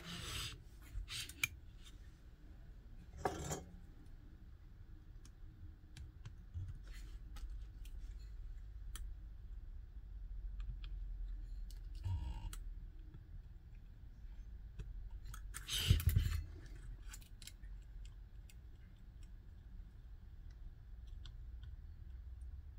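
Handling noise from a router circuit board and its small parts being moved and fitted by hand on a workbench: scattered light clicks and taps, with a few louder knocks and rustles about three, twelve and sixteen seconds in, over a faint low hum.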